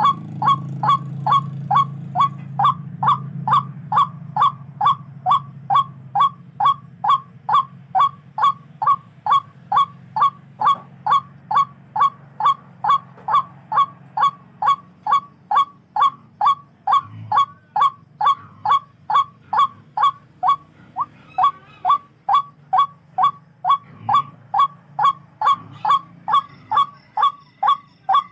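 Tikling (barred rail) calling: short, sharp honking notes repeated evenly, about two a second, over a low background rumble.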